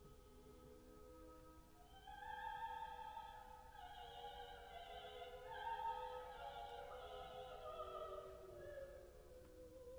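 Quiet classical music, long sustained high notes in an operatic, singing style, swelling in about two seconds in and fading away near the end.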